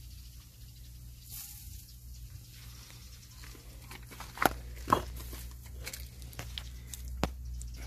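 Outdoor ambience with a steady low hum and faint short chirps of mountain birds. About four and a half seconds in, a few sharp knocks start and come irregularly to the end.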